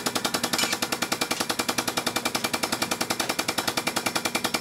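Air-over-hydraulic shop press pump chattering in fast, even pulses, about eleven a second, as the press pushes a new wheel bearing into a cast-iron spindle.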